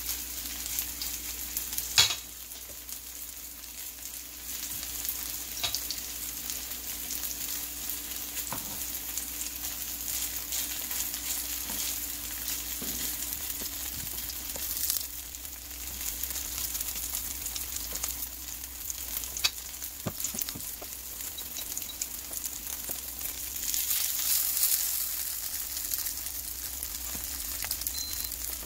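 Tofu and ground-beef patties sizzling steadily in oil in a nonstick frying pan, with a few sharp knocks of the spoon and spatula against the pan as the mixture is spooned in and pressed flat; the loudest knock comes about two seconds in.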